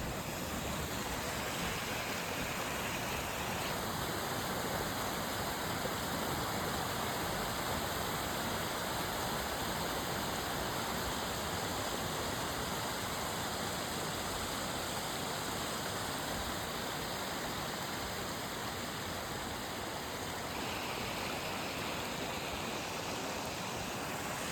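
Creek cascading over a small waterfall into a river: a steady rush of falling water.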